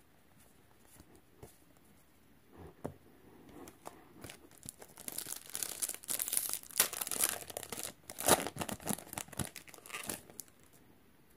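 Foil Magic: The Gathering booster pack wrapper being torn open and crinkled by hand as the cards are pulled out. A few faint card clicks come first, and the crinkling starts about four seconds in, at its loudest in the middle, and dies away shortly before the end.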